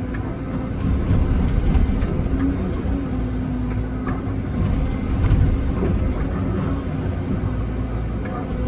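Excavator's diesel engine running steadily while digging, a continuous low drone with a hum that comes and goes and a few light clicks and knocks.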